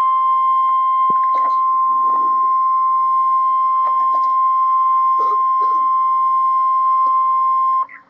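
NOAA Weather Radio 1050 Hz warning alarm tone, heard through the radio's speaker: one steady, loud, high-pitched tone that cuts off suddenly near the end. It is the attention signal that comes before the spoken severe thunderstorm alert.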